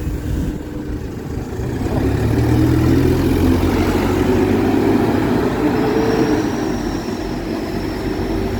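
Bus engine running and revving up about two seconds in, loudest through the middle and easing off near the end, with a faint high whine starting about six seconds in.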